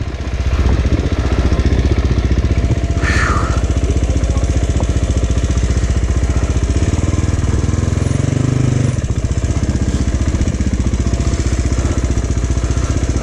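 Dirt bike engine running steadily while riding a trail, with a change in revs about eight seconds in and a brief hiss about three seconds in.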